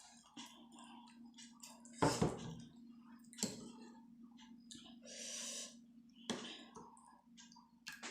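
Close-miked eating sounds of chicken momos with soup: wet chewing and mouth smacks, a few sharper clicks, and a longer slurp about five seconds in.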